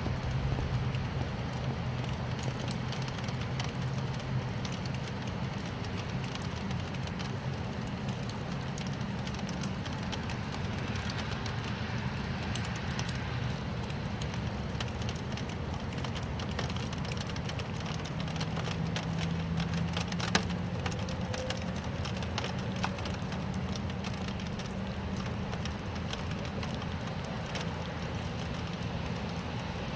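Steady rain falling, with a dense patter of close drop impacts ticking and crackling on a surface and a low hum underneath. One sharper tap stands out about twenty seconds in.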